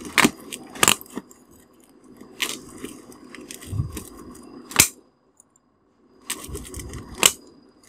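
A flat metal tool scraping and prying at the copper winding of a transformer core to strip the wire out, with five sharp metallic clicks at irregular intervals and a short pause past the middle.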